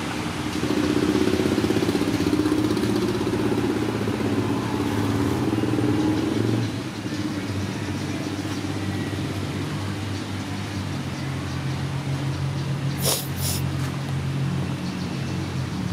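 A motor engine running steadily, its hum quieter and lower from about six seconds in, with two quick clicks a little before the end.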